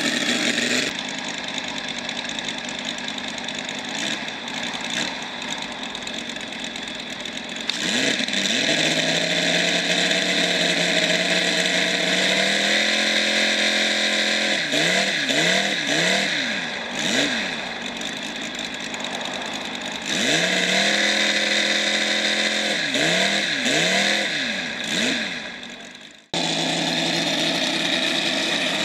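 The 125 cc UMS engine of a quarter-scale model Focke-Wulf 190 running on the ground while the throttle is worked: it runs steadily, gets louder and steps up in revs, then is blipped into quick rises and falls of pitch twice. It stops abruptly near the end and comes straight back at a steady run.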